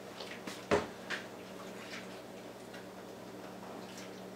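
Kitchen items being handled at a counter: one sharp knock just under a second in, a softer knock shortly after, and scattered faint ticks over a low steady hum.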